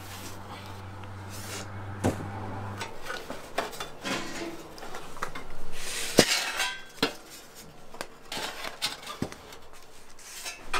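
Metal baking trays clanking against a tiered metal rack as trays of gata are loaded into it: a few separate sharp metallic knocks, with a short scrape about six seconds in.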